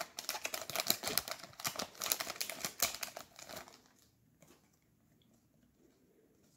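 Foil trading-card booster pack wrapper crinkling and tearing as it is pulled open by hand, a dense rapid crackle that stops a little under four seconds in, leaving only a few faint ticks.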